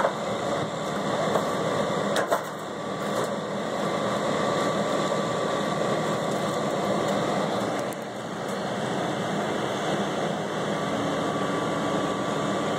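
A steady mechanical drone, as of a motor running, with a brief knock about two seconds in.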